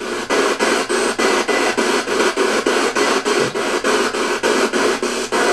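Spirit box sweeping through radio stations: a steady hiss of white noise chopped into short bursts, about five a second.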